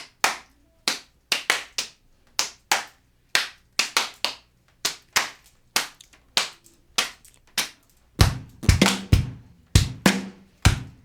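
Music intro of rhythmic hand claps; about eight seconds in, a kick drum and a low bass line come in under the claps.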